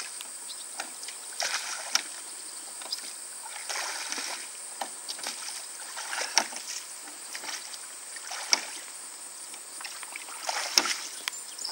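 Oars dipping and splashing as a small aluminum rowboat is rowed, with irregular sharp knocks now and then.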